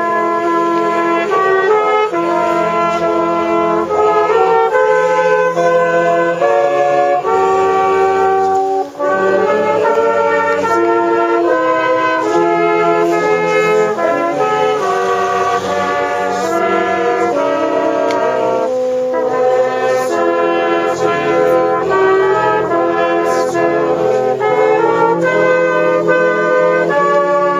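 Brass band playing a slow tune in full held chords, the notes changing every second or two.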